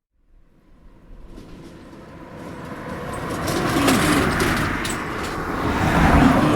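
A car towing a trailer passes by on a road. It comes up out of silence and grows to a loud pass about four seconds in, with clattering ticks around the peak. A second swell of road noise follows near the end.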